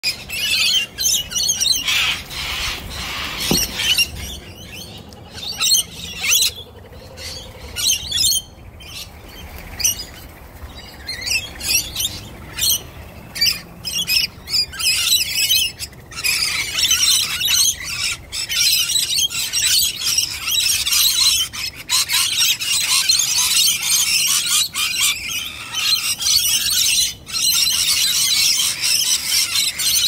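Flock of rainbow lorikeets screeching and chattering, with loud harsh squawks. The calls come in separate bursts at first; about halfway through they turn into a dense, unbroken din as the flock crowds a bowl of nectar.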